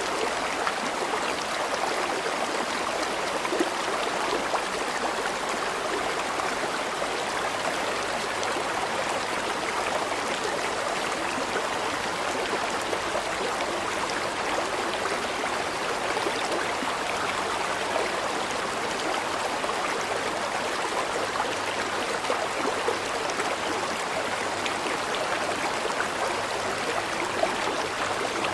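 Flowing river water: a steady, even rush of running water with occasional brief louder splashes.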